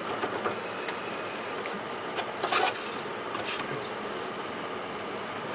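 Steady whir of PC cooling fans running, with brief rustles of handling about two and a half and three and a half seconds in.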